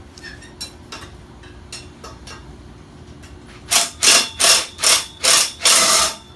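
A hand ratchet being worked: a few light metal clicks, then six quick rasping ratchet strokes in a steady rhythm, about two and a half a second, near the end.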